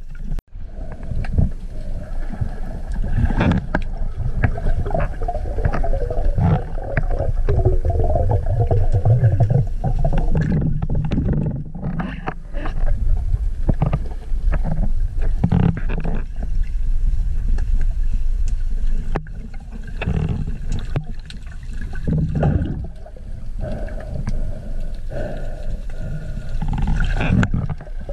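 Underwater sound picked up by a camera in a waterproof housing on a speargun: a steady low rumble of moving water with gurgling and many small clicks and knocks throughout.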